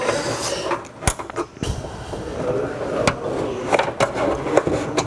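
Plastic trim clips clicking and the tailgate's interior trim panel rattling as the clips are prised out. There is a sharp click about a second in, then a low rumble of handling noise.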